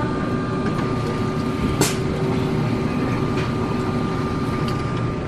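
Coca-Cola Freestyle soda dispenser pouring a drink into a paper cup: a steady rush over the machine's hum, with one click about two seconds in.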